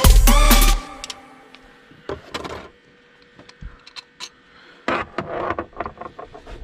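Music cuts off about a second in. It is followed by scattered clicks and short plastic rattles of hands working the wiring connector clip on a throttle body.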